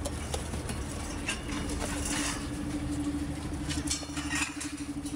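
Scuffle of riot police hauling a detainee: shuffling boots, rustling clothing and armour, and knocks of a jostled handheld microphone. A steady hum comes in about a second and a half in.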